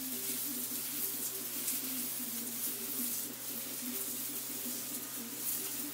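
Water from a garden hose spraying onto a concrete patio, a steady hiss of spray splashing on the slab. A low wavering hum runs underneath.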